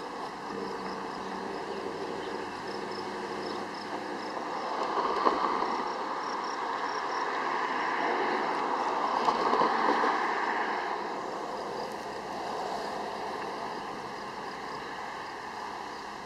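Outdoor road traffic noise. It swells about five seconds in and peaks around ten seconds as a vehicle passes, and a faint steady hum is heard in the first few seconds.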